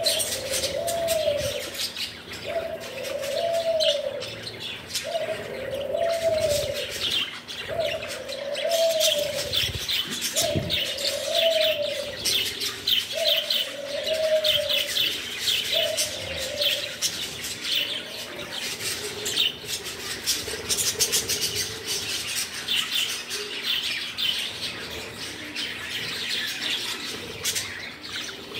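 A flock of budgerigars chattering with rapid high chirps and warbles. Under it, a low arched call repeats about once every second and a half, fading after about seventeen seconds.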